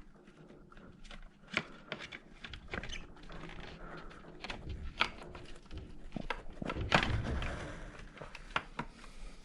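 Irregular clicks, taps and rustling of a plastic mudguard being handled and pushed into place on a bike's front fork, with a louder scrape about seven seconds in.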